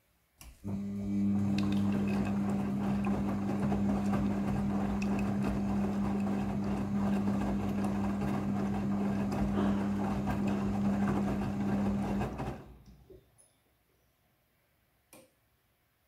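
Midea front-loading washing machine turning its drum during the rinse: a steady motor hum with wet laundry tumbling. It starts about half a second in and stops after about twelve seconds, and a single click follows near the end.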